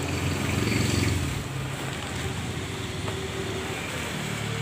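A motor vehicle passing in road traffic: a low rumble swells to its loudest about a second in, then settles into a steady traffic hum.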